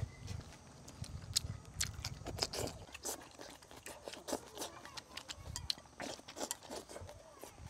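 A person eating close to a clip-on microphone: chewing and smacking, with short irregular clicks of wooden chopsticks against a ceramic bowl as rice is shovelled from the bowl to the mouth.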